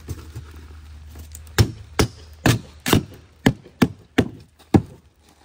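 Pink extruded-polystyrene foam insulation board being knocked down into a wooden floor frame: a run of about eight sharp knocks at roughly two a second, starting about a second and a half in.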